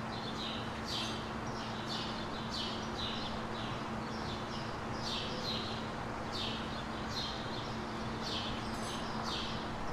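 Birds chirping: a run of short, high, falling chirps, two or three a second, over a faint steady low hum.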